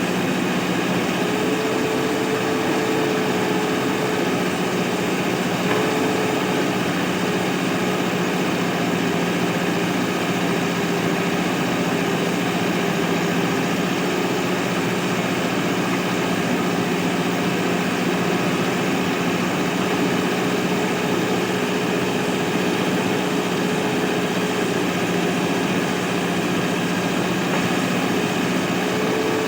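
Mahindra backhoe loader's diesel engine running at a steady speed, an even hum with no sharp knocks.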